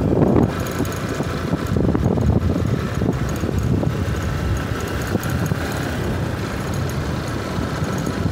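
Motorcycle riding along a gravel road at a steady pace: the engine runs evenly under a dense rumble of tyre and wind noise.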